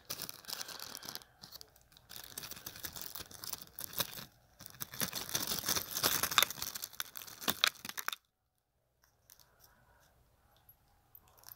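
Close rustling and crinkling handling noise on the phone's microphone, cloth and hands rubbing against it in irregular bursts, stopping abruptly about eight seconds in.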